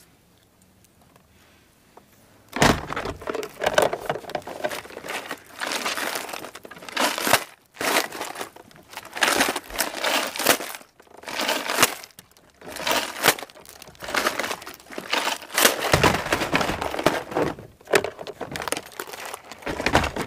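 Irregular crinkling and rustling of plastic tackle and clothing being handled, starting about two and a half seconds in after near silence.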